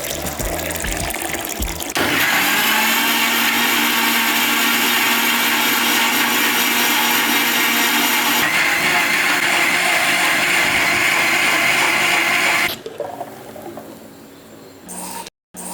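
Electric mixer grinder running steadily with a motor hum and whirring for about ten seconds. It then stops, and a few short pulses follow near the end.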